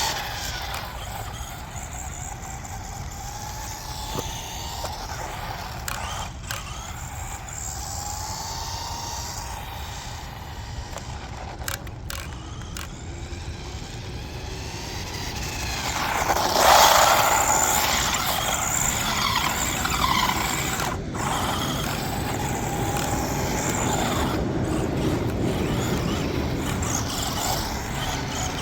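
Brushed electric motor and drivetrain of a 1/14-scale RC truck whining, the pitch rising and falling with the throttle over tyre and gear noise. It gets loudest a little past halfway, under a hard burst of throttle.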